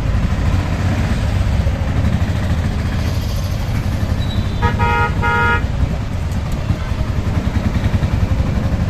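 Auto rickshaw's small engine running with a rapid low pulsing, heard from inside the open cab while riding. About five seconds in, a vehicle horn toots twice in quick succession.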